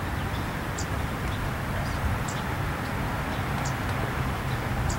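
Outdoor background noise: a steady low rumble, with a few short, high bird chirps scattered through.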